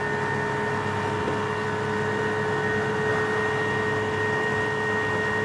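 Elco 48-volt electric outboard running steadily under load, pushing a jon boat at about 7 mph: a constant motor whine over an even rush of water from the wake and wind.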